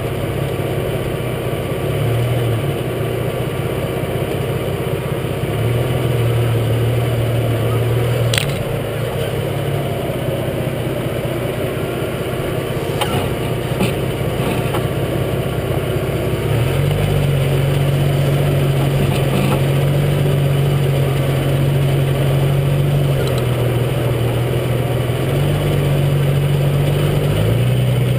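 Jeep Cherokee XJ driving slowly off-road, heard from under the front axle: the engine runs at a steady low note that steps up and down a few times, over a steady rush of tyres on gravel. One sharp click comes about eight seconds in.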